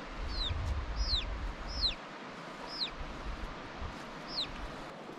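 Chicks peeping: a series of about six high, quickly falling chirps at irregular intervals. A low rumble runs under the first two seconds.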